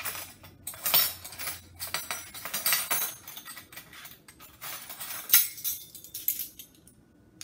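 A ring of metal measuring spoons scooping sugar from a ceramic bowl, clinking and scraping against it, with the spoons jangling together. The clinks come irregularly throughout, with a sharp one about five seconds in the loudest.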